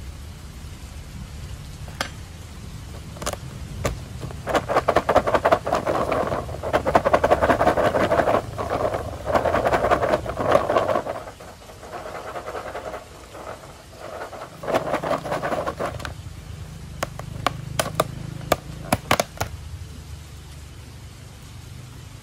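Popcorn rattling against the sides of a plastic tub as it is tossed with balado seasoning. It comes in loud, rhythmic bursts for several seconds, then in softer handling sounds and a few sharp clicks, over a steady low hiss of rain.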